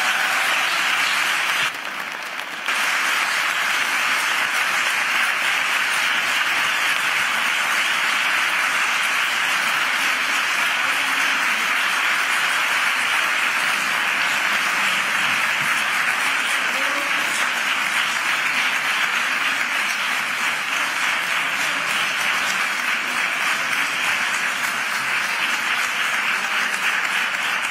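Audience applauding, a dense, steady clapping that carries on without a break. The sound briefly drops in level about two seconds in.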